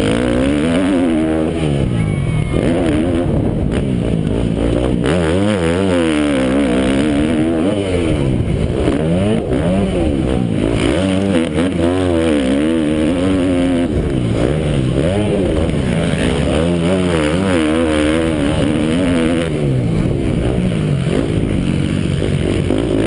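Motocross bike engines racing, repeatedly revving up and falling back as riders work the throttle and gears, pitch rising and dropping every second or two. Several overlapping engine pitches cross one another.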